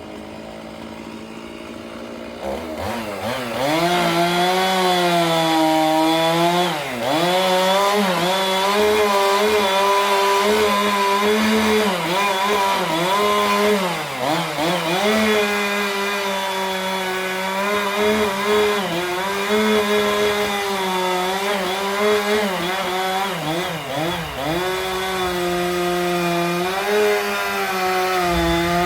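Chainsaw cutting into a tree trunk, its engine note dipping and recovering again and again as it bogs under load in the cut. It runs quieter for the first couple of seconds, then comes up to full throttle about three seconds in.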